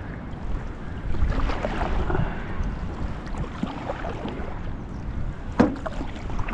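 Canoe paddle strokes swishing and splashing in the water, with wind rumbling on the microphone and one sharp knock about five and a half seconds in.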